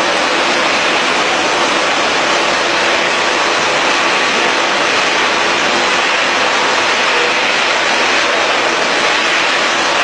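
Machinery of a twin-screw extruder puff-snack production line running together: a steady, loud mechanical noise with a faint hum in it.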